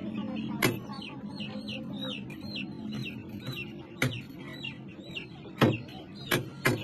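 Meat cleaver chopping through chicken onto a wooden log chopping block, five sharp chops, three of them close together near the end. Birds chirp in quick repeated notes between the chops.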